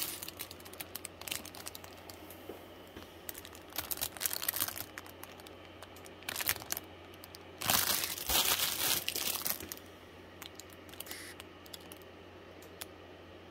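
Clear plastic bags holding plastic model-kit sprues crinkling as they are handled, in irregular bursts with a louder spell of rustling about eight seconds in.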